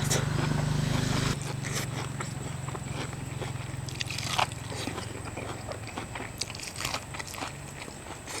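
A person biting and chewing seafood, with many small scattered clicks and crunches of eating. A low steady hum underneath drops in level about a second in.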